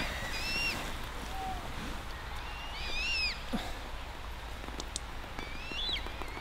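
A bird calling outdoors: short whistled notes that rise and fall, a pair near the start, a cluster about three seconds in and another near the end, over a steady low rumble.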